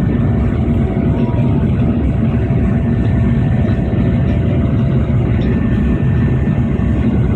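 Steady, loud rumble of an airliner's engines and airflow inside the passenger cabin.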